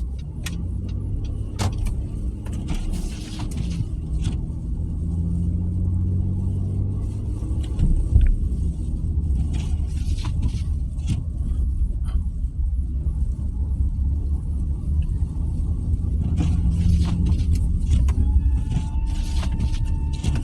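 Car driving on a snow-covered road, heard from inside the cabin: a steady low rumble of engine and tyres, with scattered small clicks and ticks.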